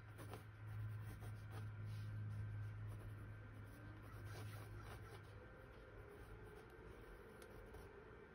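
Faint scratching and light ticks of a paintbrush on canvas, over a low steady hum that fades about four seconds in.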